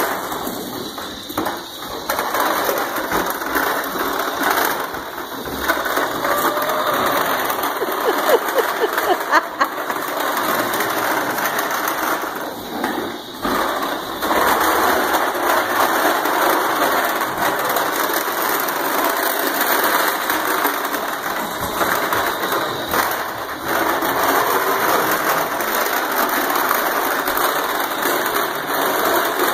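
Pink Fisher-Price toy lawnmower rattling and clattering as it is pushed across a hardwood floor, with a few short pauses.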